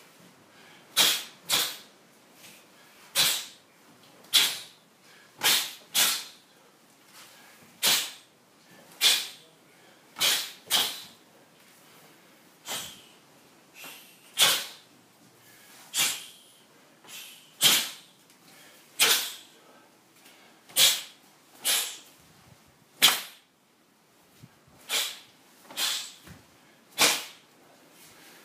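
Sharp, hissing breaths out through the teeth, one with each technique of a taekwondo pattern done at full speed. They come roughly once a second, some in quick pairs.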